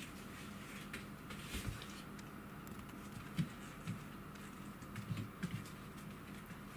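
A Pembroke Welsh corgi puppy and a kitten play-wrestling: faint scuffling and pattering of paws and claws on a foam puzzle mat, with a few soft thumps as they tumble, the loudest about three and a half seconds in and a small cluster about five seconds in.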